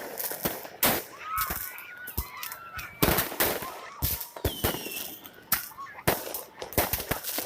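New Year fireworks going off in an irregular string of sharp bangs, several a second at times, with a few short wavering tones between the bangs.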